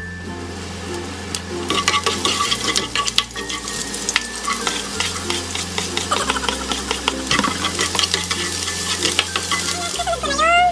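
Chopped garlic and onion sizzling in hot oil in a nonstick frying pan. A plastic spatula stirs them through, clicking and scraping against the pan many times.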